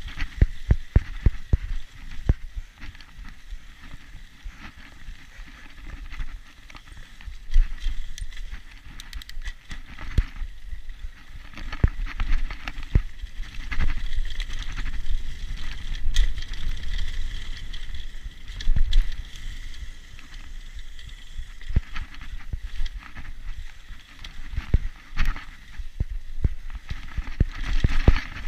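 Bicycle ridden along a bumpy dirt trail: frequent irregular knocks and rattles as it rolls over the ground, over a low rumble.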